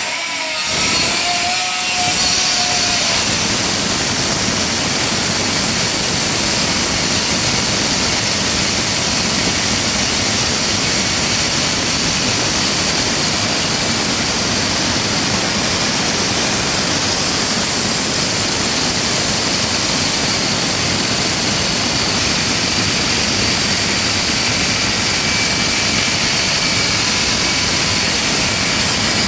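Concrete cutting machine running steadily while cutting into concrete: a loud, even, hissing grind. It comes up to speed within the first second or two.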